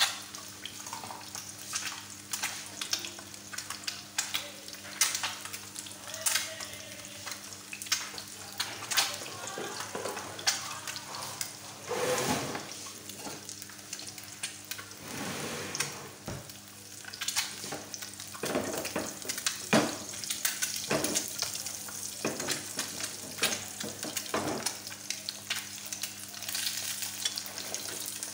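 Two eggs frying in desi ghee in a pan, sizzling and crackling with constant fine spits and pops. A few louder knocks come partway through.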